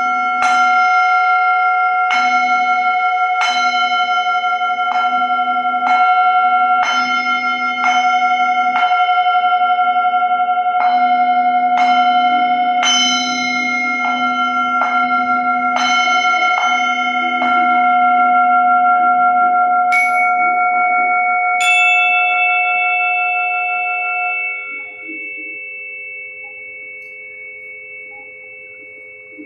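A metal bell-type instrument, struck again and again about once a second, its ringing tones held on between strikes. About 20 seconds in, the strikes give way to two higher-pitched strikes that ring on and slowly fade, over a steady lower hum.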